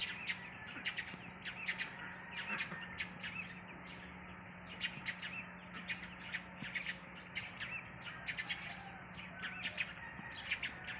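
Small birds chirping again and again in quick, short notes, over a steady low hum.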